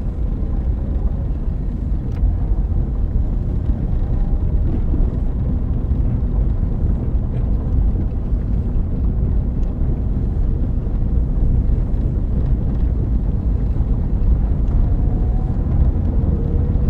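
A car on the move with a steady low rumble and drone from the driver-side front wheel area, which the owner says gets louder with speed and does not change with braking or turning. The owner is unsure whether it comes from a bad tire or the drivetrain. A faint tone rises gently near the end.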